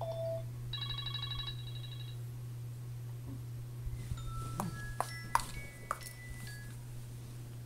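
Apple iPhone ringtones played back from a burned CD through a DVD player: a short tone, then a quick trembling run of bright chime-like notes, then a few scattered pings and chimes, over a steady low hum.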